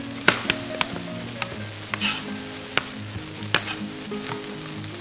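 Chef's knife chopping shelled peanuts on a cutting board: irregular sharp knocks of the blade on the board, over a light sizzle from oil and butter heating in a pot. Soft background music underneath.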